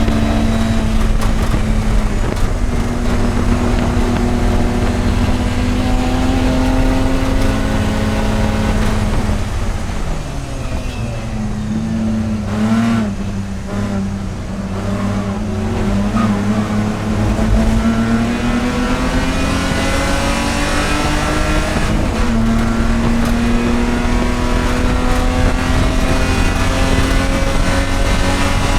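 Race car engine running hard on track: the engine pitch climbs slowly under full throttle. About ten seconds in the revs fall away with quick throttle blips, as on braking and downshifting, then build again through a gear change near the end.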